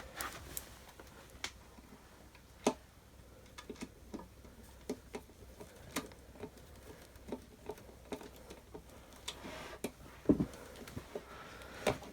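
Scattered light plastic clicks and taps at irregular intervals, with a heavier knock about ten seconds in, from a vacuum cleaner's handle being fitted onto its body and its fixing screw being lined up.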